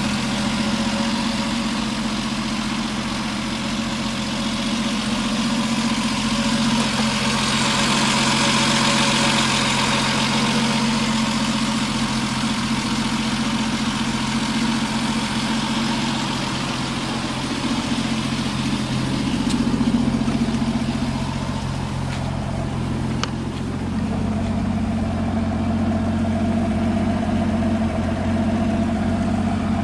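Triumph 2.0-litre Vitesse straight-six engine idling steadily.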